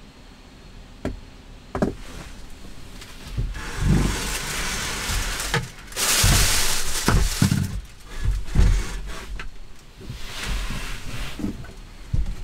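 Wooden knocks and rustling, scraping handling noises in a small wood-panelled camper cabin: two sharp knocks early, then several longer stretches of rustling and sliding mixed with low thumps.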